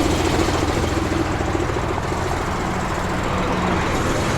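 Heavy truck engine idling steadily close by, with the constant rush of interstate traffic behind it.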